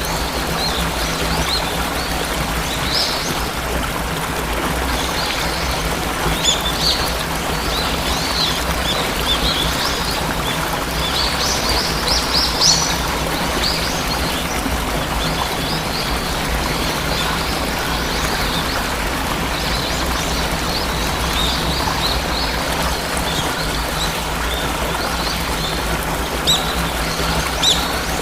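Steady rush of falling water from a waterfall, with small birds chirping over it in short calls, busiest about a third of the way in and again near the end.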